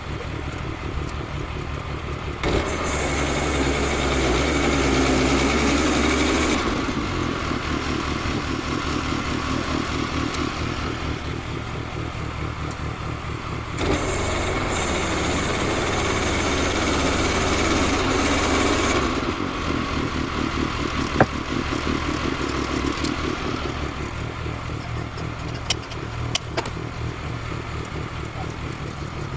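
Woodland Mills HM122 portable bandsaw mill's gas engine running steadily. Twice it is throttled up for about four to five seconds, louder, with a rushing hiss from the band blade while it runs. A few light knocks near the end.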